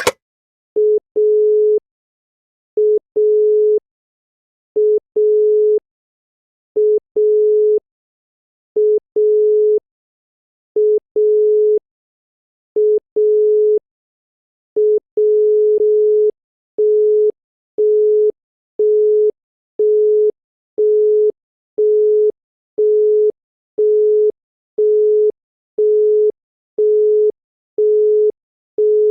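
Italian telephone call-progress tones, a single mid-pitched tone. First the dial tone, a short beep followed by a longer beep and repeating every two seconds, showing the line is ready for dialling. About fifteen seconds in it switches to the busy tone, evenly spaced beeps about once a second, because nothing was dialled with the receiver off the hook.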